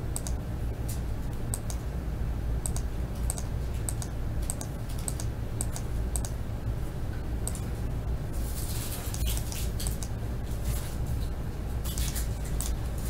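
Computer mouse and keyboard clicks: short sharp clicks, often in pairs, about one or two a second as the randomize button is clicked over and over, then quicker runs of key and mouse clicks near the middle and end, over a steady low hum.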